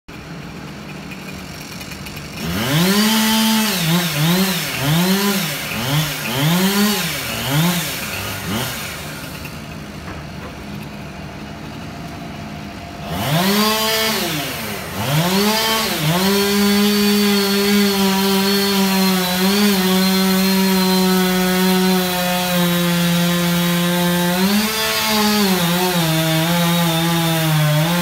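Two-stroke chainsaw revved in a quick series of throttle blips, settling to a low idle for a few seconds, then revved up again and held at high speed for a long stretch, with small dips in pitch, as it cuts into the trunk of the tree.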